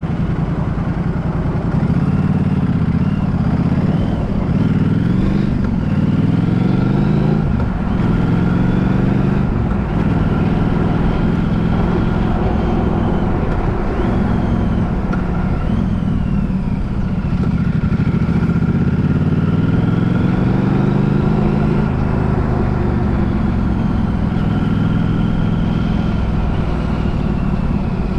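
A road vehicle's engine running while driving, its note climbing and dropping again several times as it accelerates and shifts gear, over steady road noise.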